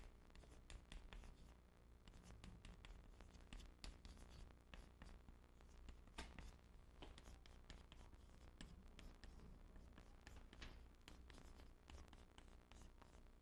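Chalk writing on a chalkboard: faint, quick, irregular taps and short scrapes as characters are written stroke by stroke.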